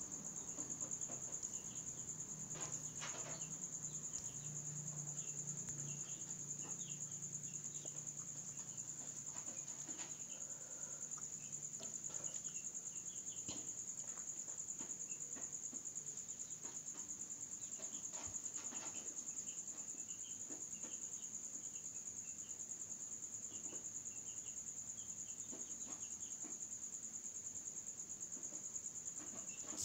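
Crickets trilling steadily at a high pitch, with faint scattered chirps lower down.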